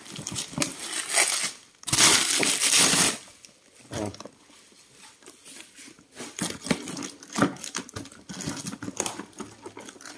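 Bubble wrap around a cardboard box crinkling and rustling as it is handled. The loudest part is a long rustle about two seconds in. A quieter pause follows, then more scattered crackling as the box is moved.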